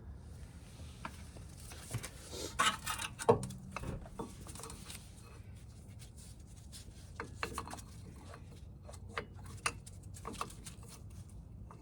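Scattered light clicks and short scrapes of metal brake pads being handled and checked against the caliper, busiest about three seconds in.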